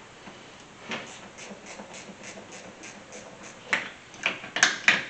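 Ratchet wrench clicking in a quick even rhythm as a car battery terminal clamp is loosened, then a few louder sharp metallic clicks and knocks near the end as the terminal is worked loose.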